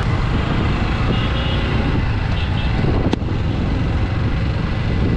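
Steady rumble of a motorcycle ride in traffic, with wind and engine noise on the microphone, faint short high beeps of vehicle horns, and a single sharp click about three seconds in.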